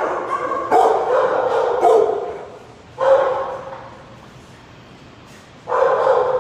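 Shelter dogs barking in loud runs of barks, with a lull of about two seconds before the barking starts again near the end.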